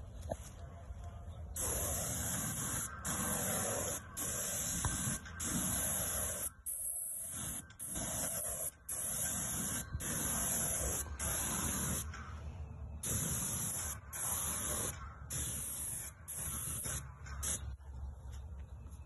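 Paint sprayer gun spraying a wooden fence, hissing in repeated short bursts of about a second each as the trigger is pulled and released.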